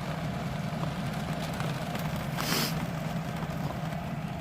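Steady low machine hum, with a short hiss about two and a half seconds in.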